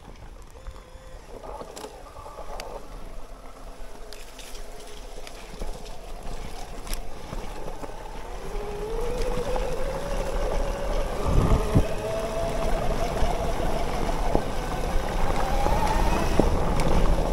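Bafang BBSHD mid-drive e-bike motor whining, its pitch rising steadily from about eight seconds in as the bike gathers speed, over a rush of wind noise. A low thump about eleven seconds in.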